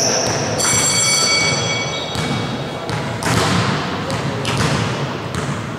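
Echoing sports-hall sound during a volleyball match: a high, steady tone for about a second and a half near the start, then several thuds roughly a second apart, over a background of voices.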